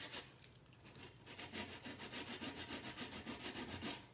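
Fast back-and-forth hand sanding of a hardened Kwik Wood epoxy putty patch on a wooden drawer corner, about five strokes a second, smoothing the repair flush with the wood. The strokes pause briefly just after the start and resume a little over a second in.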